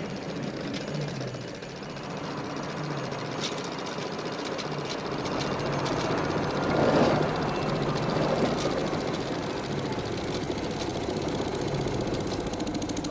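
Heavy vehicle engine running with a continuous mechanical rumble, swelling louder about seven seconds in.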